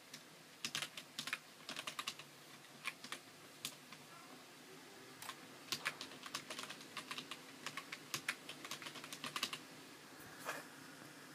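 Keystrokes on a computer keyboard as a password is typed: irregular short clicks in quick runs, with a pause of about a second and a half near the middle.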